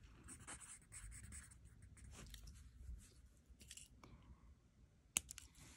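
Pen writing faintly on lined notebook paper in short scratchy strokes, with one sharp click about five seconds in.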